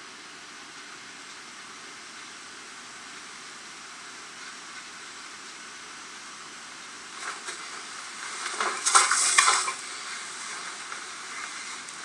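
Steady hiss, then about seven seconds in, a few seconds of loud rustling and scraping from a person moving close to the microphone, loudest around nine seconds.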